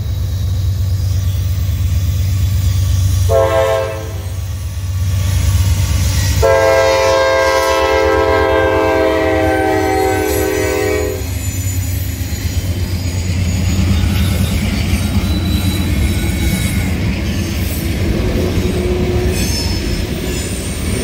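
Freight train's diesel locomotive air horn sounding a short blast, then a long blast of about five seconds for the grade crossing, over the steady rumble of the diesel engines. After the horn, the engines and the wheels rolling over the crossing continue as the locomotives and tank cars pass.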